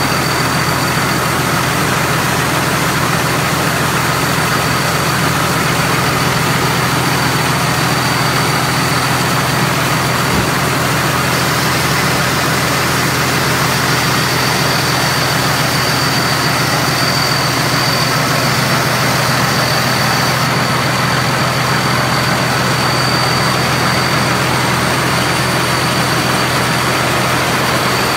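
Thai Seng Yont rice combine harvester running steadily, its engine and machinery giving a constant loud roar with a steady high whine over it.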